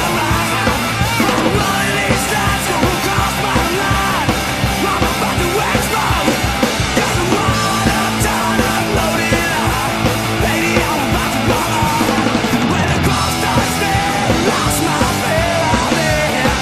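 Loud rock song with a sung vocal line over a steady driving beat.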